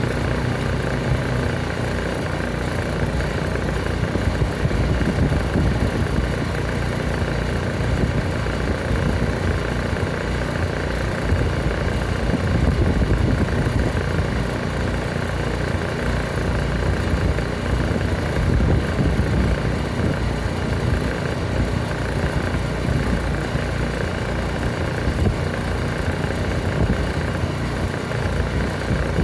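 Pressure washer engine running steadily at a constant speed.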